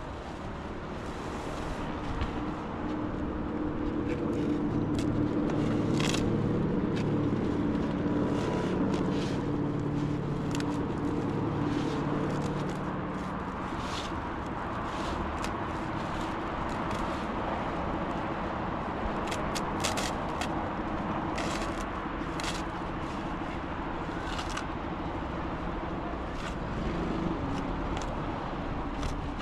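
A motor running, with a steady pitched hum that is strongest in the first half and then eases off, over scattered sharp clicks and knocks.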